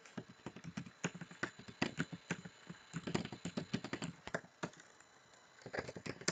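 Computer keyboard typing: quick, irregular keystrokes as a command is entered, pausing for about a second late on before a few more keys are struck near the end.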